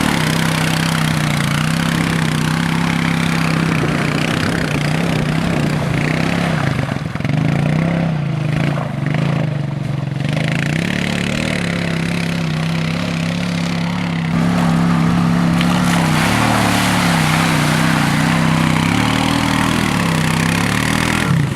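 Quad (ATV) engine running as it is ridden through mud, its pitch rising and falling as the throttle is worked.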